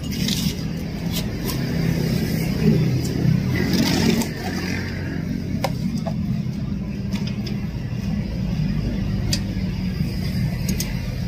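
Steady low mechanical drone with scattered sharp clicks and taps, busier for a couple of seconds near the middle.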